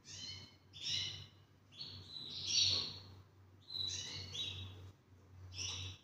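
Male Spanish Timbrado canary in breeding condition singing: five short phrases of high, layered notes in quick succession with brief pauses between, the loudest phrase about two and a half seconds in.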